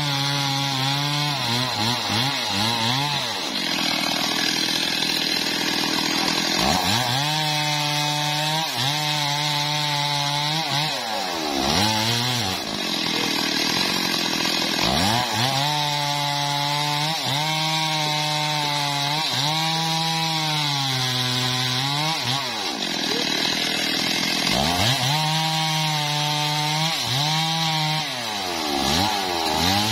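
Stihl MS 382 two-stroke chainsaw cutting through a mahogany log. It holds a steady pitch for several seconds at a time, and its revs drop and climb back about five times between passes.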